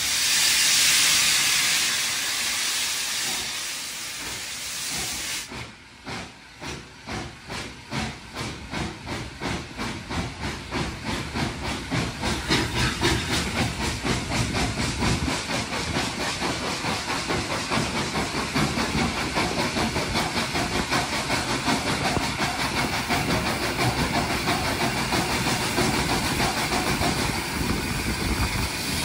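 Austerity 0-6-0 saddle tank steam locomotive starting a train: a loud hiss of steam for the first five seconds, then exhaust chuffs that begin slow and quicken to about four a second as it gathers speed, heard from a carriage behind the engine.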